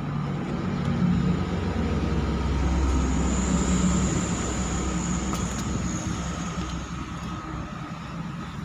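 A motor vehicle passing by: a low engine rumble that swells, peaks midway and fades.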